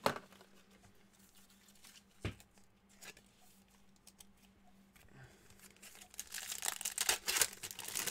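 Foil wrapper of a trading-card pack being torn open and crinkled, a dense crackling run starting about six seconds in, after a few light taps.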